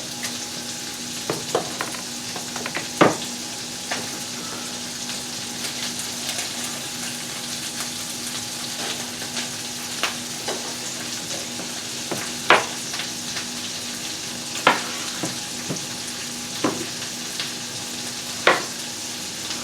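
Chicken pieces browning in butter in a frying pan, giving a steady sizzle, with a sharp knock every few seconds.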